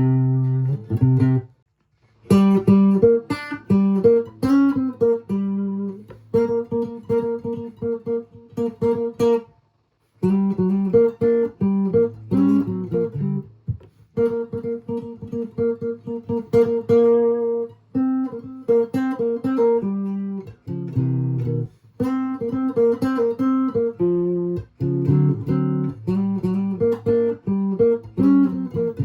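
1941 Gibson ES300 archtop electric guitar with a cheap P90 pickup, played as chords held a second or two each, with a few short breaks. The tone is a little honky, which the owner puts down to that particular P90.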